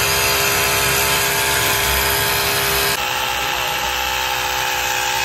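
Stop & Go portable electric tyre inflator running steadily, its compressor pumping up a punctured motorcycle tubeless tyre toward about 2.5 kg/cm². Its tone shifts slightly and gets a little quieter about three seconds in.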